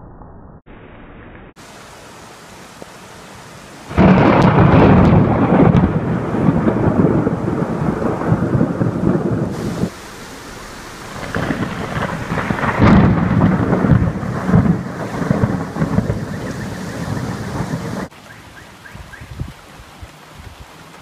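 Thunder during a heavy rainstorm. Rain hisses steadily, then about four seconds in a sudden loud thunderclap breaks and rumbles for several seconds. A second long rolling peal follows and dies away into quieter rain near the end.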